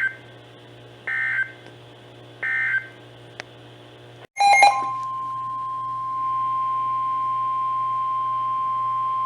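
NOAA Weather Radio EAS signalling: three short warbling SAME data bursts about a second and a half apart, the end-of-message code closing the previous warning. After a click and a brief dropout, the steady 1050 Hz weather radio alert tone comes on about five seconds in and holds, announcing a new warning.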